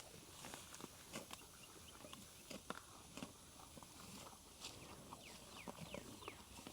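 Near silence: faint outdoor ambience with scattered soft clicks and knocks and a few short chirps about halfway through.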